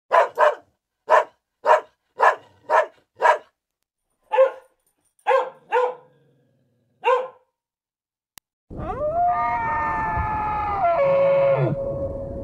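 A dog barking about eleven times in short, separate barks, the first two close together, with gaps that lengthen toward the end. After a pause of over a second, a long drawn-out animal call of steady pitch comes in over background noise and drops away near the end.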